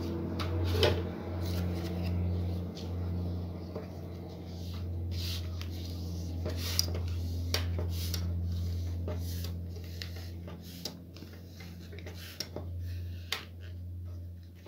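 Newspaper rustling and crackling as a wide glued strip is rolled by hand around a thick wooden stick into a paper tube, with many short crackles over a steady low hum.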